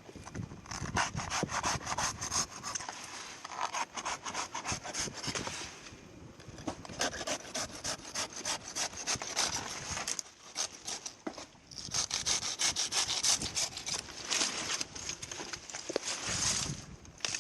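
Handsaw cutting through palm frond stems in quick back-and-forth strokes, in three bouts with two short pauses.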